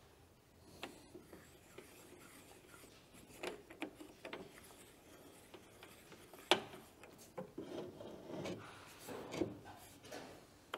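Faint scraping and small metal clicks as the manual rod is threaded into the sharpening stone on a John Deere 6000-series chopper and the stone is worked back by hand. One sharper click comes about six and a half seconds in.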